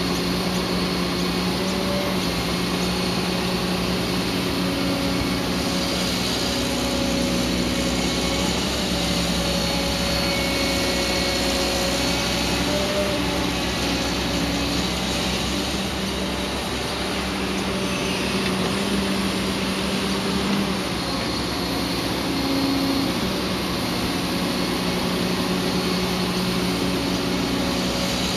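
Diesel engine and hydraulics of a Caterpillar 315D L hydraulic excavator working as it digs, swings and loads a dump truck: a steady engine drone whose tones strengthen and fade as the arm works.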